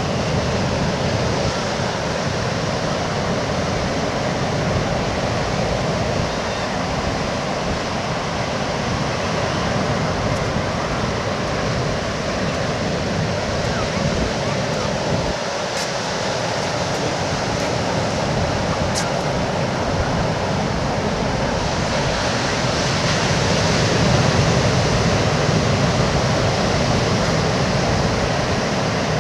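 Ocean surf washing onto the beach, a steady rushing hiss that swells a little about two-thirds of the way through.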